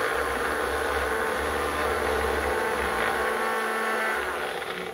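Small push-down personal blender running steadily with the cup held pressed onto its motor base, grinding cabbage chutney ingredients; the motor stops near the end.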